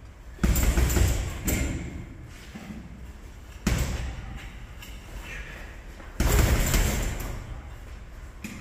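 Three heavy thuds, each dying away over a second or two, over a steady low rumble.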